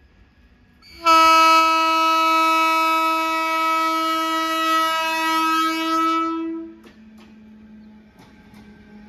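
WAG-12B electric freight locomotive sounding its horn in one long, steady blast of about six seconds, starting about a second in and cutting off near the end. After it, a low hum and scattered clicking of the locomotive and wagons rolling past on the rails.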